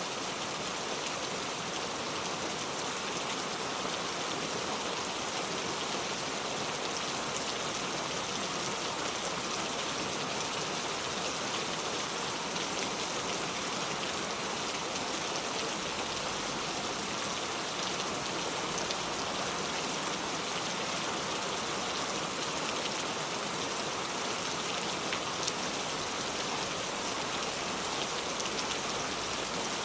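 Steady rainfall: an even hiss of rain with the patter of drops on surfaces.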